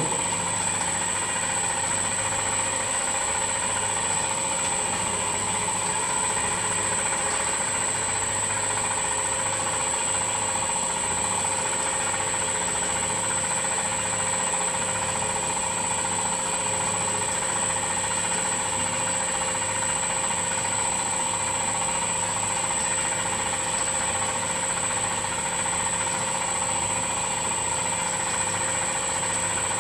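Boutelje Honey Auger's motor running steadily as it grinds crystallised honey: a constant mechanical hum with a steady high whine over it.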